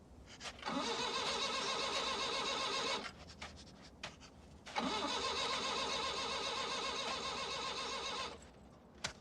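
Van engine cranking over on its starter in two bursts, a shorter one and then a longer one, stopping each time without catching: the engine won't start.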